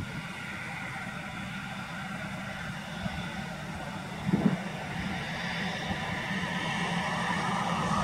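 Road traffic: a steady vehicle hum with tyre noise that grows louder toward the end as a vehicle approaches. A short knock right at the start and another about four and a half seconds in.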